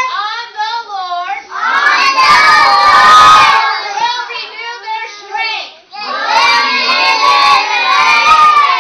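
A group of preschool children shouting together in two loud bursts, the first starting about a second and a half in, the second about six seconds in.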